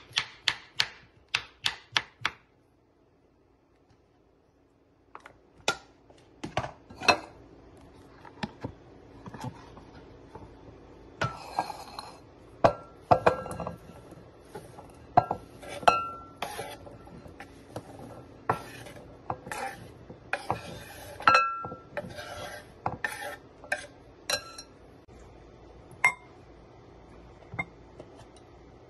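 Kitchen knife chopping cucumber on a wooden cutting board, about four strokes a second, stopping about two seconds in. After a short pause, clinks and knocks of glass bowls and kitchen utensils being handled on the counter follow at irregular intervals.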